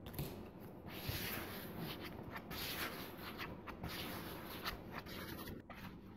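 Spreader scraping and smearing two-part body filler mixed with red hardener across a paper mixing pad, in a series of scraping strokes.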